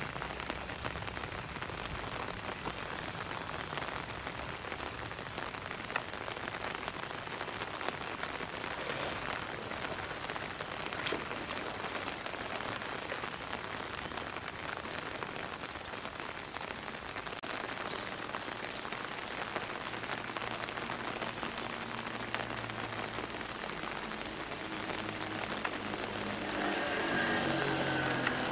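Steady watery patter and sloshing as an Indian rhinoceros wallows and lies down in a shallow muddy pool. A low droning hum comes in and grows louder near the end.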